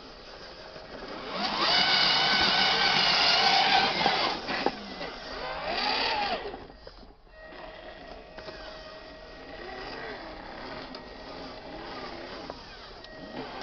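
Small electric drive motor and gears of a radio-controlled model dump truck whining as it climbs a dirt track. The whine is loudest and steady for a couple of seconds near the start, then rises and falls in pitch with the throttle and runs on quieter.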